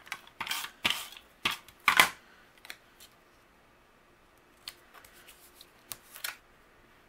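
Adhesive tape runner pulled across a card-stock circle in a few short strokes, then the light clicks and taps of the paper pieces being handled and pressed together.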